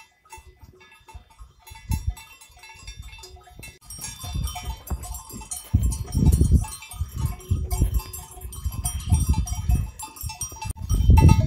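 Bells on a large moving flock of sheep, clinking and tinkling in a constant jumble. Bursts of low rumble come in from about six seconds in and again near the end.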